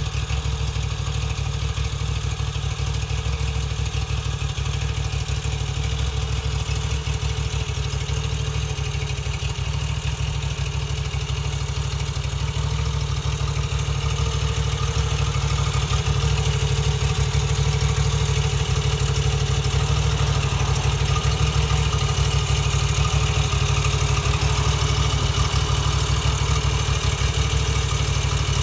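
Moto Guzzi V85 TT's air-cooled 853 cc transverse V-twin idling steadily, a little louder from about halfway through.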